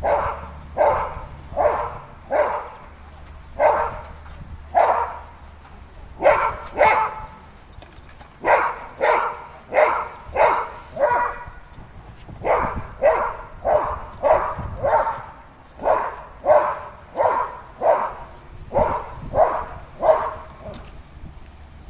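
A Belgian Malinois barking loud, sharp barks over and over, about one to two a second, with a few short pauses, some thirty barks in all.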